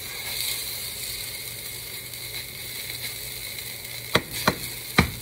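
Pancake batter sizzling in a hot frying pan, the sizzle swelling about half a second in as the batter lands. Near the end come four sharp knocks from the metal measuring cup striking the pan.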